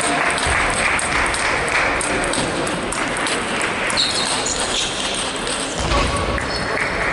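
Table tennis ball clicking off rackets and table in a rally, amid the steady background din of a large hall with other tables in play.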